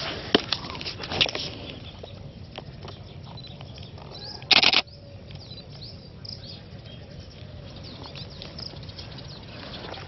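A camera shutter firing in a quick burst for about half a second, the loudest sound, about four and a half seconds in. A few sharp handling clicks come in the first second or so, and faint bird chirps sound in the background.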